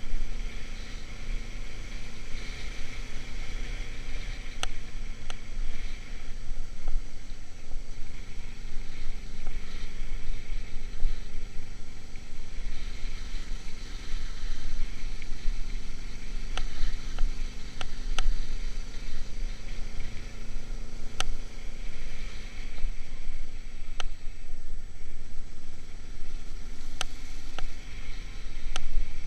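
Motorcycle running at a steady cruising pace, its engine note fairly even, under a heavy low rumble of wind on the camera's microphone. A few short sharp clicks are scattered through it.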